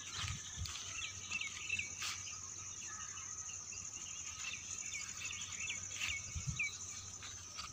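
A steady high-pitched insect chorus, with many short repeated chirps over it and a few soft low thumps.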